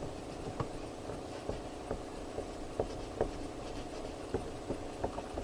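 Faint rubbing and scattered light taps of an alcohol wipe being worked around a window frame, over a steady low hum.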